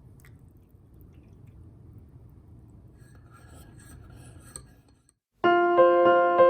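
Faint low ambient background with a few light ticks, a moment of silence, then background piano music starting about five and a half seconds in and becoming the loudest sound.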